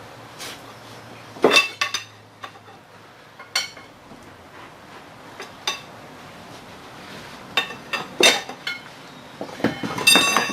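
Steel pry bars clinking and scraping against a jackshaft's bearing cap and housing as the cap is pried loose: a scattered run of sharp metallic clinks with a short ring, coming thicker near the end.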